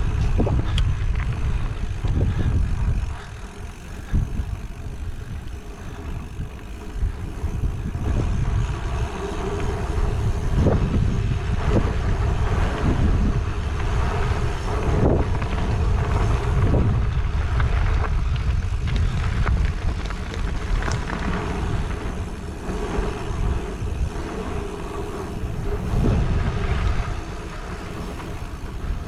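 Mountain bike being ridden on a dirt trail: wind rushing over the microphone and the tyres rumbling, with frequent short knocks and rattles from the bike over bumps.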